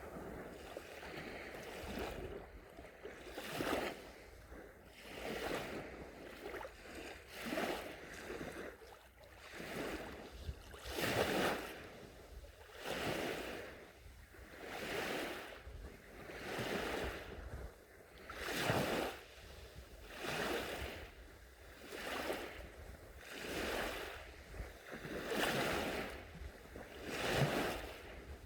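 Small sea waves washing onto a beach, each one a swell of surf that rises and falls away, coming about one every two seconds.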